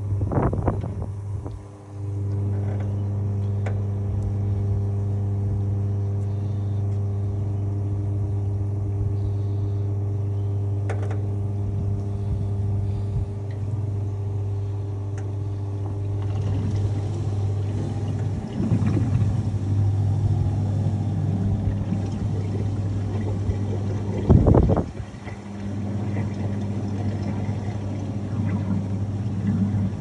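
GE Profile top-load washing machine running with a load of towels: a steady low motor hum that cuts out briefly about two seconds in. A few short clunks and swishes come from the drum, the loudest about three-quarters of the way through, after which the hum dips and returns.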